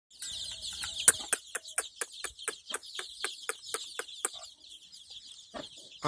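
Young desi chicks peeping continuously in high chirps, with an adult hen clucking in a quick regular series of about four clucks a second that stops about four seconds in.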